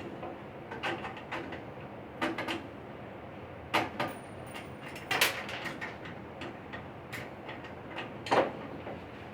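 Irregular clicks and knocks of metal parts being handled inside a gas furnace cabinet as the igniter is taken out, the loudest knocks about four, five and eight seconds in, over a steady low background noise.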